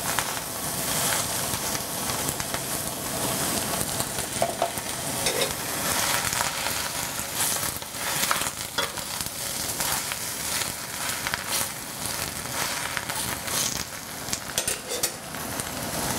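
Gai lan (Chinese broccoli) leaves sizzling in hot oil in a stainless steel wok as they are stirred and tossed, with a steady frying hiss and scattered sharp clicks and scrapes of the utensil against the pan.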